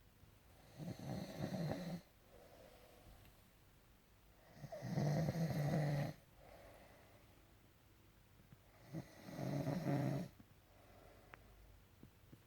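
Heavy snoring: three long rattling snores about four seconds apart, with quieter breathing between them.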